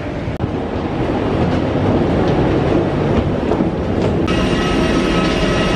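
Steady rumble and hum of a jet airliner parked at the gate, heard from the boarding bridge. About four seconds in, the sound changes abruptly to a steadier hum with several high, steady whining tones.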